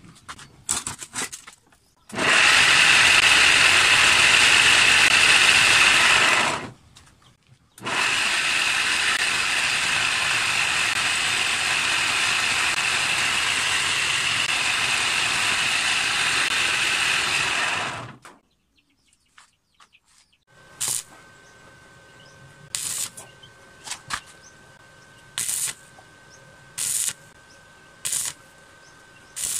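Electric motor of a homemade coconut grater running its V-belt pulley drive: a steady run of about four seconds, then a longer run of about ten seconds. After a pause, a stick welder strikes a series of short arc tacks, one every second or two, over a steady faint hum.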